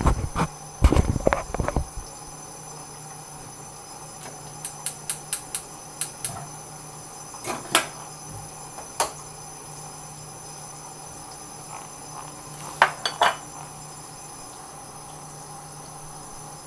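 Kitchen handling noise: a few heavy knocks in the first two seconds, then scattered light clicks and clinks, like pots, dishes and utensils being set down and moved, over a faint steady hum.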